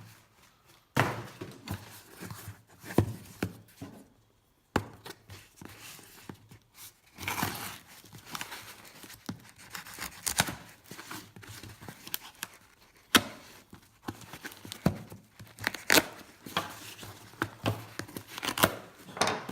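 An inner shipping box being opened by hand: packing tape and cardboard tearing and packing material crinkling, with scattered sharp knocks and clicks.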